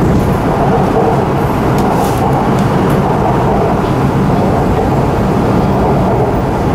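Steady rumble of a Shanghai Metro Line 9 train running along the line, heard from inside the carriage.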